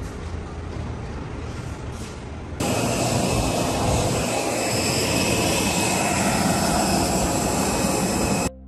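Jet airliners running on an airport apron: a steady rush of engine noise with high whining tones, starting suddenly about two and a half seconds in after a quieter stretch of background noise, and cutting off just before the end.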